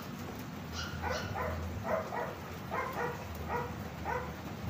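A dog barking repeatedly, about eight short barks, some in quick pairs, over the steady hiss of rain.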